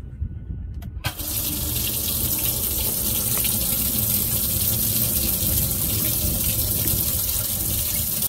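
Water from a Rule Tournament Series 800 gph livewell pump pouring out of its outlet fitting and splashing into the livewell tank, starting suddenly about a second in and then running steadily. The stream is weak, not enough pressure for a deck washdown.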